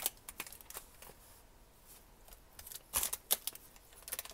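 Trading-card booster pack and cards being handled, with scattered crinkles and rustles. A quick run of sharp crackles comes about three seconds in.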